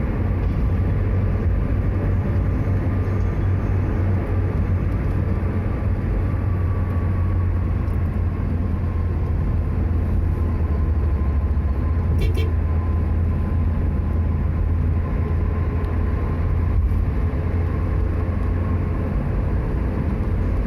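Steady low rumble of tyres and engine inside a car's cabin while it cruises at highway speed, with a brief run of clicks about twelve seconds in.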